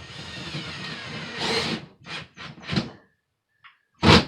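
A rasping scrape for about two seconds, then three short scrapes and a loud sharp knock near the end: hand work on the wall mounting of a water filter housing.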